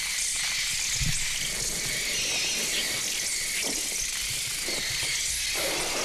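A swarm of sparrows filling a room on a film soundtrack: a dense, shrill, continuous twittering and chirping.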